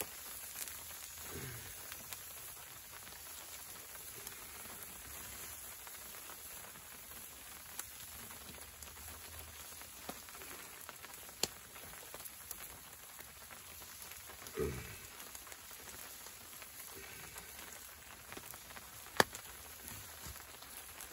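Wood fire crackling in a small camp stove, with a steady faint sizzle from hot dogs cooking on the hot stove top and a few sharp pops, the loudest near the end. Two brief falling sounds come through, one about a second in and one about two-thirds through.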